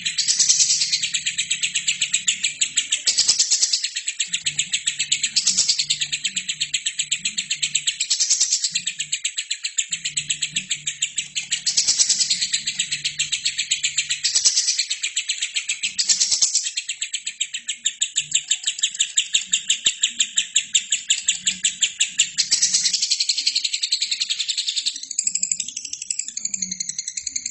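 Albino lovebird singing a long, very rapid chattering trill, with louder bursts every two seconds or so; near the end it changes to notes that sweep up and down.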